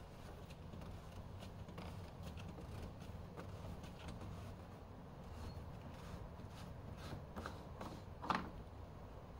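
Faint plastic clicks and handling noises from hands working the cap of a BMW X5 coolant expansion tank, over a low steady hum, with one sharper short sound near the end.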